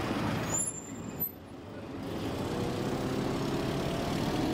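Road traffic, cars and other vehicles running past, with a short high squeal about half a second in. The noise drops briefly about a second in, then builds up again.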